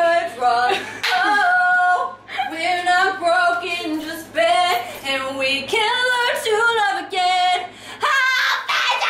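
A woman singing loudly and theatrically without accompaniment, in sung phrases with long held notes and short breaths between them.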